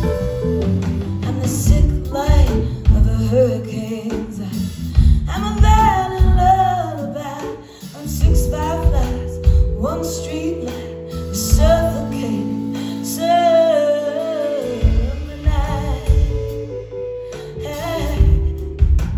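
Live Americana band music: a woman singing lead over guitar, bass and drums.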